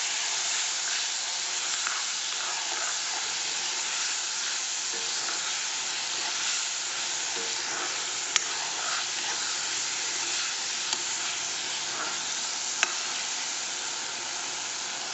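Chopped tomatoes and onion-spice masala sizzling in hot oil in a black iron karahi, being fried down until the tomatoes soften and melt, with a steady frying hiss. A metal spoon stirring the masala gives two sharp clicks against the pan, one just past halfway and one near the end.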